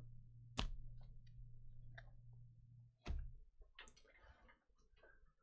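Sharp clicks and knocks of rigid plastic top-loader card holders being stacked and tapped square on a table, a handful of separate taps with the loudest about half a second and three seconds in. A low steady hum underneath cuts off about three seconds in.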